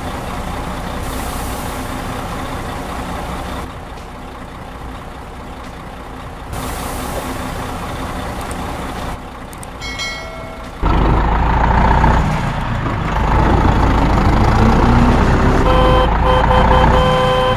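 Heavy truck engines running across several cut-together clips. A much louder, deeper engine comes in about eleven seconds in, and a run of short, evenly repeated beeps sounds near the end.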